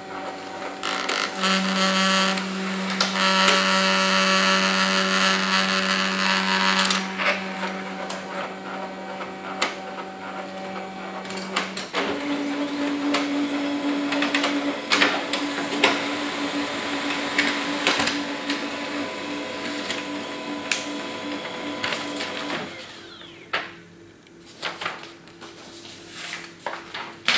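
Canon i-SENSYS FAX-L390 laser fax making a copy: its feed and print motors run with a steady hum and scattered clicks. The hum steps up in pitch about halfway through and dies down a few seconds before the end as the printed copy comes out.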